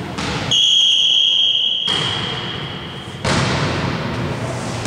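Referee's whistle blown in one long steady high note lasting about two and a half seconds. The hall's noise of play, with thuds, comes back about three seconds in.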